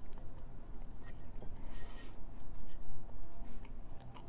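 A person chewing a mouthful of pancake, with small wet mouth clicks and a brief hiss about two seconds in.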